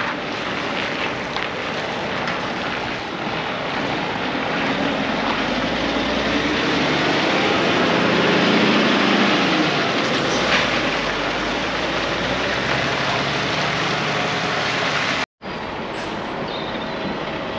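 Heavy articulated lorry with a low-loader trailer carrying an excavator, its diesel engine running as it drives slowly past, the rumble swelling louder around the middle as it passes closest.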